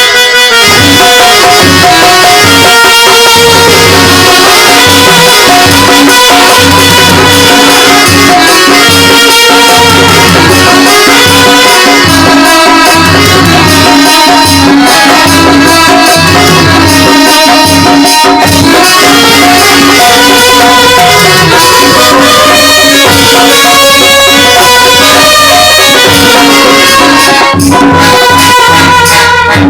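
Loud instrumental music with drums and rattling percussion keeping a steady beat, without singing.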